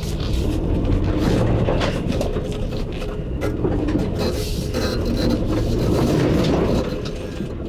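Ford Bronco with the 2.7-litre V6 driven hard in a drift over wet gravel and mud with traction control off: the engine runs loud and the tyres churn, with many small clicks of stones and grit.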